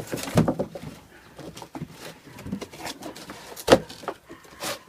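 Puppies chewing and tearing at cardboard boxes: scattered rustling and ripping, with a sharp knock about three and a half seconds in.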